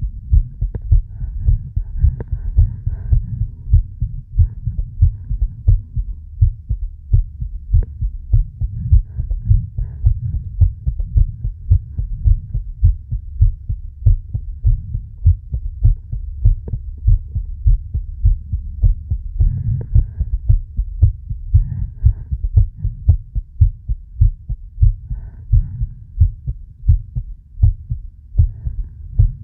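A person's heartbeat, a steady run of low thumps, with faint breathing heard several times over it.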